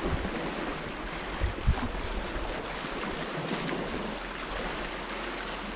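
Sea surf washing against a rocky shore, a steady rush, with wind buffeting the microphone in a couple of low thumps about one and a half seconds in.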